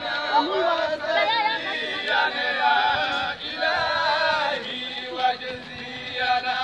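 A crowd of people chanting together in unison, a devotional chant with a wavering, drawn-out melody.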